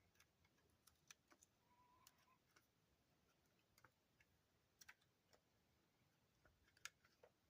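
Near silence with faint, scattered small clicks and crackles: hand handling noise as textured adhesive grip tape is pressed and smoothed onto a polymer pistol frame.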